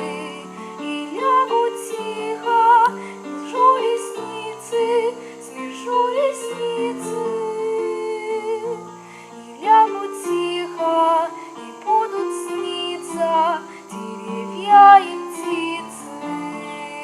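A slow, gentle song: a woman's singing voice holding notes with vibrato over instrumental accompaniment.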